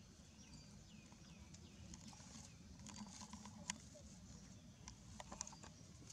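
Faint scuffs and light taps of baby macaques scrambling over dry leaves and dirt, with a few sharper ticks in the middle and near the end.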